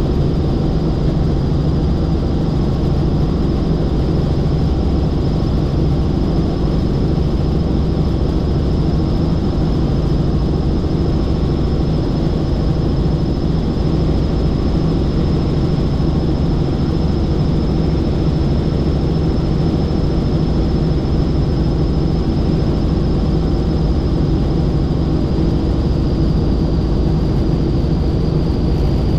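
Helicopter in flight: steady engine and rotor noise with a constant high whine that dips slightly in pitch near the end.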